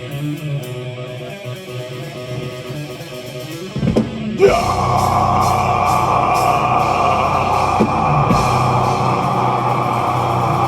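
Live metal band: a guitar plays alone, then about four seconds in the full band comes in loud with heavy guitars and drums.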